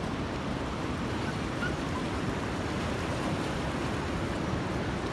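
Steady wash of sea surf, an even rushing without distinct wave breaks.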